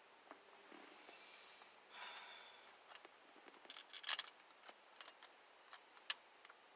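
Hands handling the steering wheel's small metal mounting screws and parts: a soft rustle, then a run of light clicks and metallic clinks, the sharpest about four and six seconds in.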